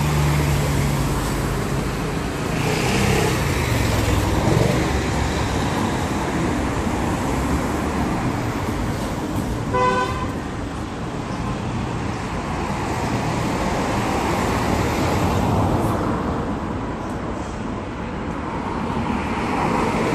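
Road traffic passing, with engine noise; one vehicle's engine tone drops in pitch as it goes by a few seconds in. A short car horn toot sounds about halfway through.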